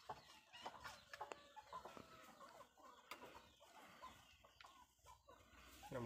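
Faint clucking of chickens, with a few light clicks and taps from plastic pipe fittings being handled.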